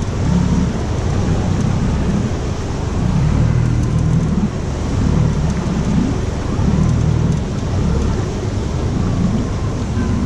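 Wind buffeting the microphone: an uneven low rumble that swells and fades every second or so, over a steady hiss.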